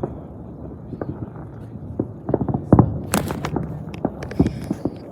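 Fireworks going off: a scattered series of bangs and pops over a low rumble, with a burst of louder, sharper cracks about three seconds in.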